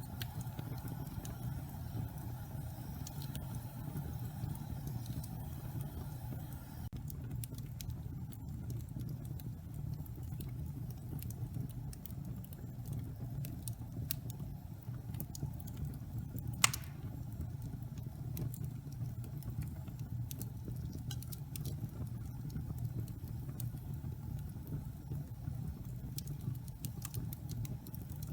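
Wood fire crackling in a fireplace over a steady low rumble, with scattered small pops and one sharp, loud crack a little past halfway.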